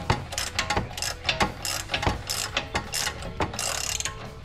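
Hand ratchet wrench clicking as it backs out the spreader bolt on a VW MK7 GTI front strut knuckle, in irregular strokes with quicker runs of clicks.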